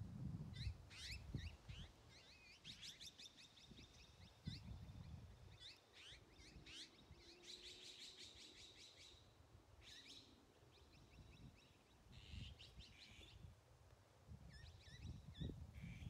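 Azure-winged magpies calling, faint, in repeated bursts of quick high notes.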